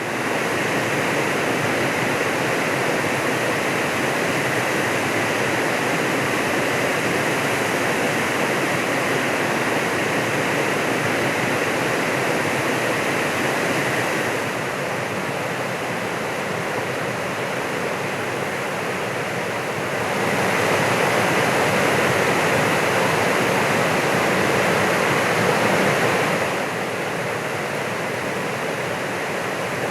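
Broad, low waterfall rushing steadily, an even roar of water. Its level drops slightly about halfway through, rises again a little later, and drops back near the end.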